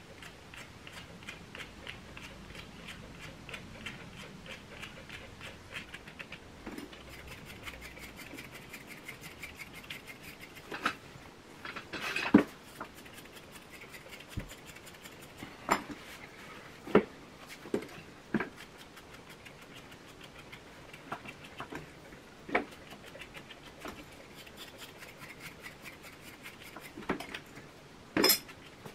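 Soft, rhythmic scratching of a comb drawn through a West Highland white terrier's coat, with about ten sharp small clicks and knocks of grooming tools, the loudest about twelve seconds in and just before the end.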